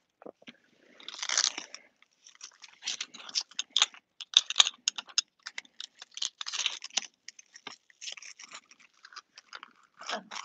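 Irregular crackling, clicking and scraping as a plastic JAS knee flexion brace and its straps are handled and adjusted on the leg during fitting.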